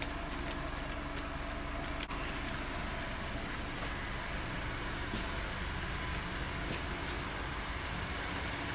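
Steady low rumble of a motor vehicle. A faint hum cuts off about two seconds in, and there are a couple of faint clicks later.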